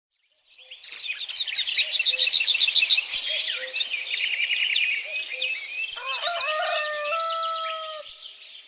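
Many small birds chirping and twittering together, with a rooster crowing once about six seconds in, its call held for about two seconds.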